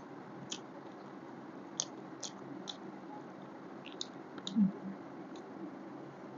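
Close-up wet chewing and lip-smacking while eating chicken: a dozen short, squishy mouth clicks at irregular times, with one louder, short low thump about four and a half seconds in.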